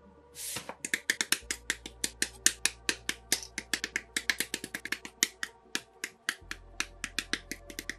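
Plastic model-kit parts being snipped off their runner with hobby side-cutting nippers: a quick, uneven run of sharp clicks, about five a second. A brief rustle comes just before the clicks begin.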